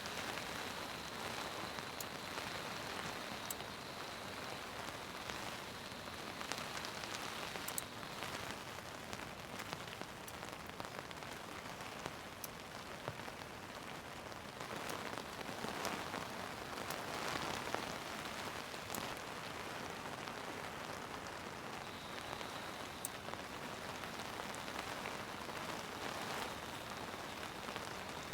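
Heavy rain falling steadily, with sharp drop impacts ticking now and then through the hiss.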